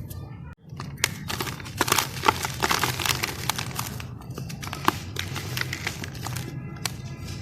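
Dry charcoal-black sand-cement slabs crunching and crumbling apart: a dense run of sharp crackles and snaps, heaviest about two to three seconds in, then thinning to scattered crackles. A brief break in the sound comes about half a second in.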